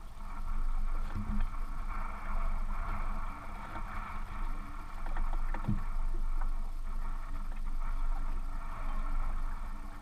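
Steady running noise from the boat, with two dull knocks, one about a second in and one near the middle.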